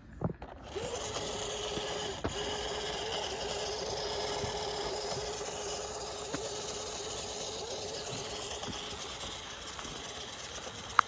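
Electric motor and gearbox of an FMS radio-controlled trail truck whining at a steady, even pitch as it crawls and spins up a climb. It starts just under a second in, with a sharp click about two seconds in and another near the end.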